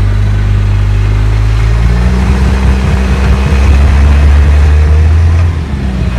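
Rock-crawler buggy's engine running under load as the buggy crawls over boulders. The engine note steps up about two seconds in and dips briefly near the end.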